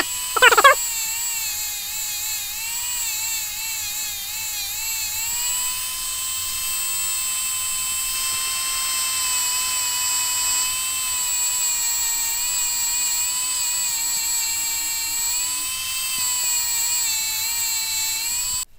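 Rotary tool spinning a felt polishing bob loaded with green compound against a stainless steel watch case: a steady high whine that wavers slightly in pitch as the work is pressed on. It opens with a couple of quick swoops in pitch and stops abruptly just before the end. This is the green-compound buffing stage that brings the case sides and bezel up to a shine.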